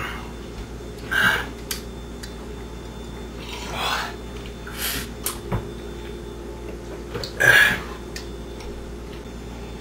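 A person breathing hard against the burn of a habanero pepper: short hissing gasps and exhalations, four main ones a couple of seconds apart, the loudest near the end, with a few light clicks and a steady low hum underneath.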